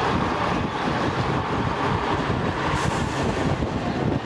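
Open-top classic bus running along at road speed, its engine a steady rumble heard from the open upper deck, with wind buffeting the microphone.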